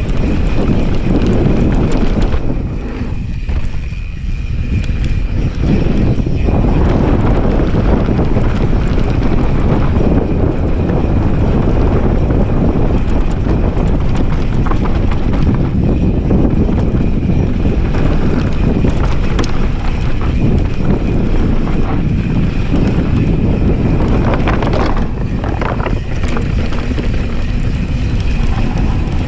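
Continuous wind buffeting the camera microphone, mixed with the tyres of a 2020 Specialized S-Works Enduro full-suspension mountain bike rolling fast over dry dirt and rocks on a downhill descent. It eases briefly about three seconds in.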